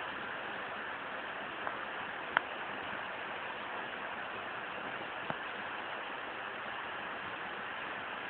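Heavy rain falling steadily, an even hiss, with a few sharp taps, the loudest about two and a half seconds in.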